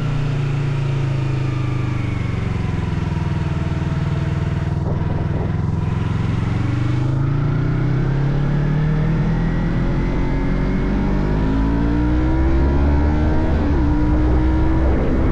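Motorcycle engine running under way: its pitch eases down over the first few seconds, then climbs steadily through the second half as it accelerates, and drops briefly near the end.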